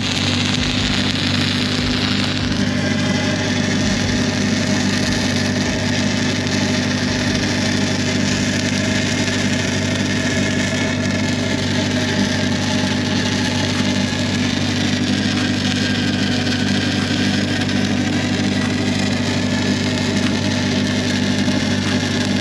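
Stick welding arc on a steel C-channel, crackling and hissing steadily, over the steady hum of an engine-driven welding machine running throughout.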